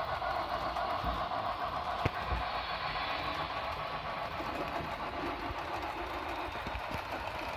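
Model freight train of hopper cars running along the layout track: a steady rolling rumble of wheels on rails, with a single click about two seconds in.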